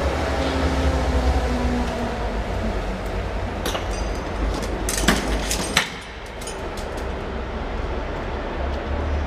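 A low, steady engine rumble, with a few sharp knocks and clanks near the middle.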